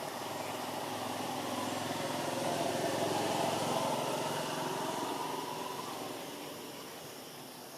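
A small engine passing by, growing louder to a peak about three to four seconds in and then fading away.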